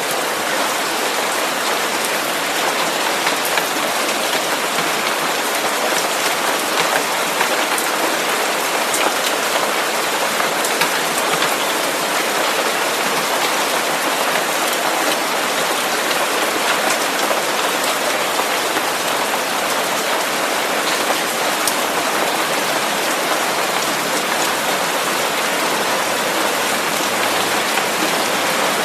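Steady rain-like noise: a dense, even hiss with faint scattered ticks like falling drops.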